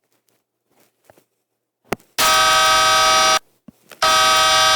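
Air horn sound effect from a phone app, two loud steady honks of about a second each, the first about two seconds in and the second about four seconds in.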